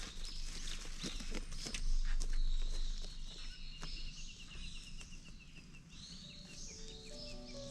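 Outdoor forest sounds: sharp clicks and rustles over the first two seconds, then a bird's rapid trill of ticking notes, about five a second, with other birds chirping. Music notes come in near the end.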